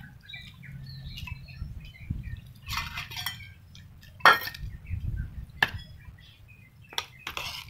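Cats eating from food bowls, with scattered clinks and knocks of the bowls against the floor and each other. The loudest knock comes about four seconds in, with short rustling, crunching stretches around it.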